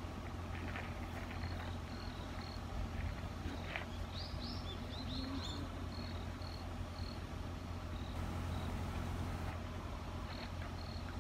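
Campsite ambience: an insect chirping in short, evenly spaced high pulses, with a bird giving a short run of chirps about four seconds in, over a low steady hum.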